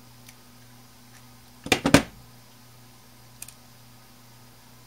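Steel needle-nose pliers set down on the work table about two seconds in: a quick clatter of several sharp knocks. A couple of faint ticks follow from handling the small circuit board, over a faint steady low hum.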